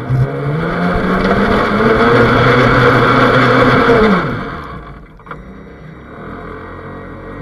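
Remote-control boat's motor running up under throttle, heard from on board with water rushing past the hull: its pitch rises over the first two seconds, holds, then drops and winds down about four seconds in. A faint tick follows about a second later.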